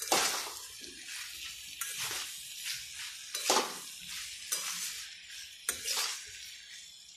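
Metal spatula (khunti) stirring and tossing shredded cabbage and vegetables in a metal kadai, with repeated sharp scrapes against the pan over a steady frying sizzle.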